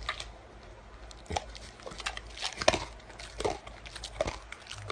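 Domestic pig chewing a treat taken from a hand, with irregular clicking, smacking mouth sounds.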